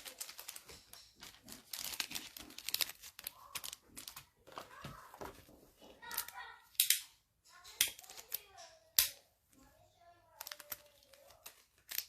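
Plastic packaging and trading cards being handled: crinkling and rustling with many short, sharp clicks and snaps. Faint voices can be heard in the background during the second half.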